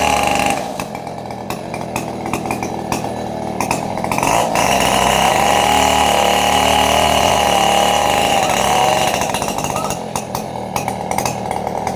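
Two-stroke chainsaw engine running at high speed, dropping back to a lower, uneven speed, then revving high again for several seconds before dropping back once more.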